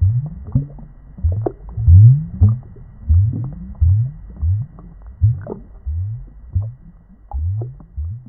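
Deep, gurgling bubbles in water: short low gulps that rise in pitch, about three every two seconds, growing somewhat fainter near the end.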